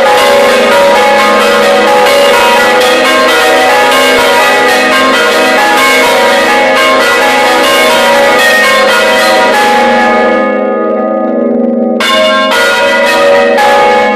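Several large church bells, swung by hand on ropes in a wooden belfry frame, ringing loud and close with rapid, overlapping clapper strikes. About ten seconds in the strikes stop and the bells hum on, then fresh strikes start again about two seconds later.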